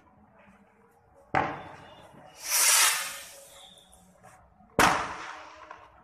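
Fireworks going off: two sharp bangs about three and a half seconds apart, each fading out in a long echo, with a loud hiss between them.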